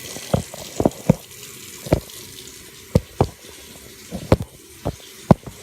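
Hot water running from a tap into a container, with about a dozen sharp, irregular clicks over the steady flow.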